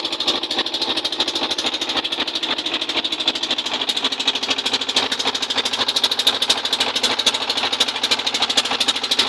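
Small fishing boat's engine running steadily with a rapid, even chugging pulse.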